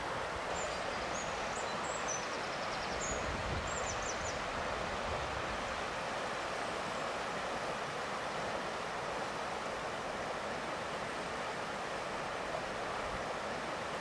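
Steady rushing of a shallow river running over stones. A small bird chirps a few times in the first few seconds.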